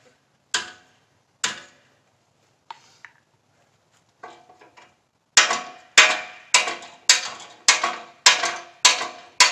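Hammer striking a steel hay ring section, the metal ringing after each blow. Two blows, a pause with a few light taps, then a steady run of about eight hard blows, a little under two a second.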